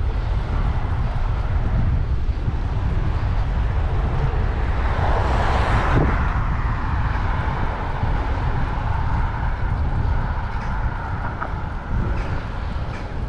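Wind buffeting the microphone while riding a bicycle through city streets, over steady road noise. A louder rushing sound swells and fades about halfway through, and a few light clicks come near the end.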